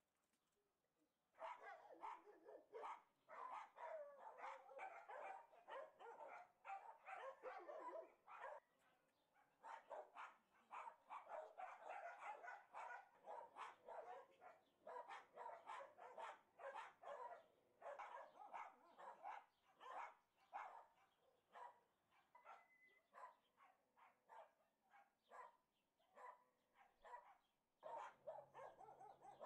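Dogs, likely puppies, barking and yipping in a long run of short calls in quick succession, with some longer wavering cries in the first few seconds.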